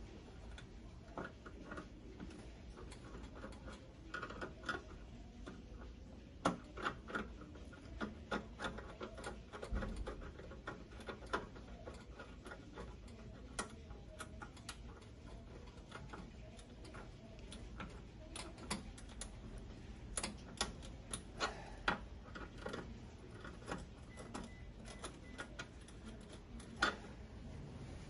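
Scattered, irregular small clicks and taps of a hand tool and wires being handled against a griddle's stainless steel housing and terminal block while a power cable is wired in.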